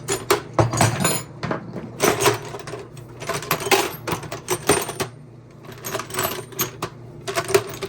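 Metal hand tools clinking and rattling against each other in a run of short, sharp clatters.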